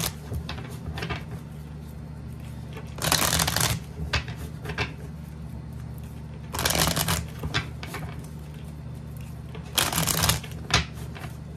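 A tarot deck riffle-shuffled three times, about three and a half seconds apart, with light clicks and taps of the cards between riffles. A steady low hum runs underneath.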